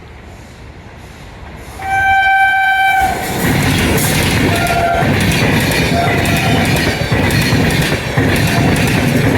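Shatabdi express train approaching, sounding its horn for about a second, then passing close at high speed. The passing is a loud rush of noise with the rhythmic clatter of wheels over rail joints.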